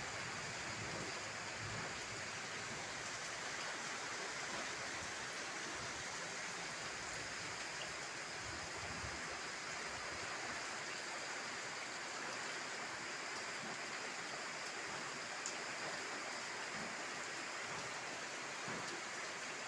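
Heavy rain falling steadily, an even hiss that holds level throughout.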